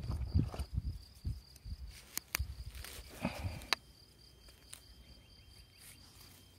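A knife digging into field soil: low rumbling thumps for the first couple of seconds, then a few sharp clicks. Crickets chirp steadily underneath.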